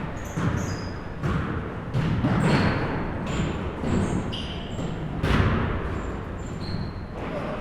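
Basketballs bouncing on a gym floor, several thuds ringing in a large hall with the loudest about five seconds in, mixed with short high squeaks of sneakers on the court.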